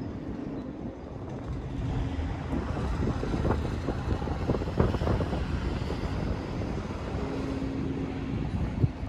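Steady low rumble of a bulk carrier's machinery as it lies in a canal lock, with wind on the microphone. A few knocks come around the middle and one sharp knock near the end.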